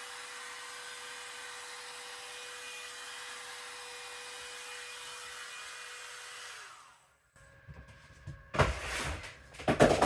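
A very small handheld hairdryer running steadily with a whine, then switched off about two-thirds through, its motor winding down with a falling pitch. A few knocks and handling noises follow near the end.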